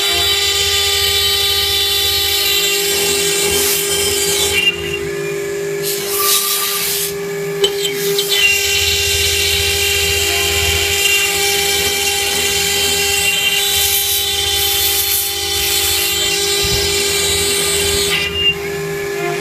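CNC router spindle whining at a steady pitch while it cuts aluminum composite panel, with a harsh cutting hiss that drops out briefly a few times, around five and seven seconds in and again near the end.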